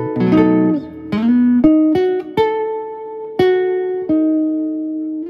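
Electric-acoustic guitar played fingerstyle through a CoolMusic BP-80 acoustic amplifier. A chord about a quarter second in, a note that slides up in pitch just after a second, then single plucked notes that ring on and fade.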